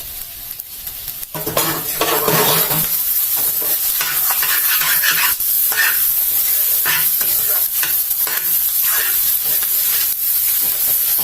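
Fried rice sizzling in oil in a karahi while a spatula stirs and scrapes it, with repeated scraping strokes over a steady hiss. The sizzle grows louder about a second and a half in.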